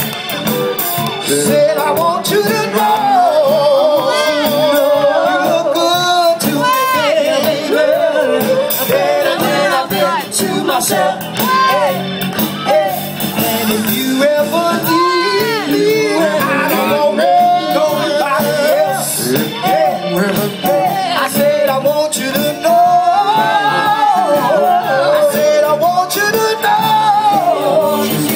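Live band playing an upbeat dance number, loud and steady, with voices singing over it.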